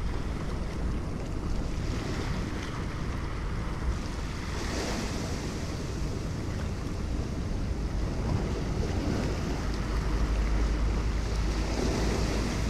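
Surf washing over a rocky reef, swelling twice, with wind buffeting the microphone as a low rumble.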